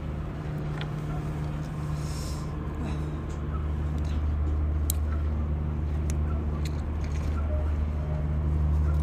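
Low, steady drone of a ship's engine that grows a little louder about halfway through. A few light clicks of a utensil picking meat out of a large boiled sea snail shell sound over it.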